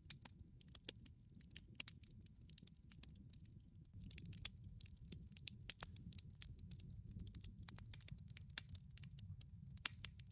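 Campfire crackling softly: irregular sharp pops and ticks over a low steady rumble.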